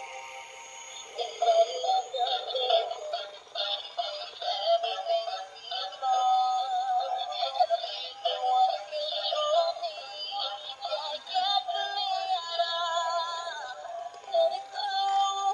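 Battery-operated dancing princess doll toy playing its electronic song through a small built-in speaker, thin with no bass.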